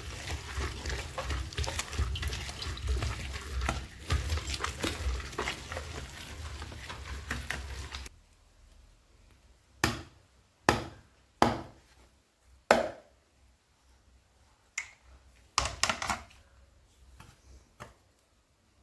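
Water splashing and sloshing as beaten rice is washed and squeezed out by hand in a bowl, for about eight seconds. Then several sharp knocks of utensils being handled.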